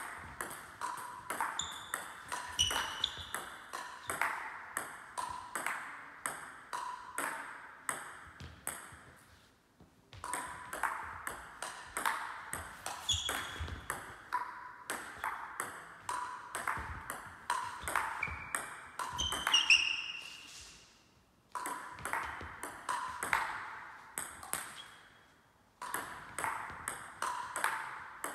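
Table-tennis rallies: the ball clicks rapidly off the rubber-faced bats and bounces on the table, one bat faced with long-pimple rubber, each click echoing in a sports hall. Play breaks off briefly three times, about 10, 21 and 25 seconds in, then the next rally starts.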